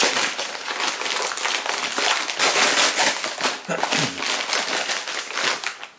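A package being opened by hand: its packaging crinkling and tearing in a dense run of sharp crackles, dying down near the end.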